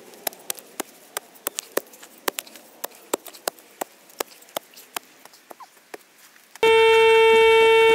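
Small hand spade chopping and scraping into dry, stony soil: sharp knocks, about three a second. Near the end a loud steady electronic tone lasting about a second and a half, a metal detector signalling a target in the hole.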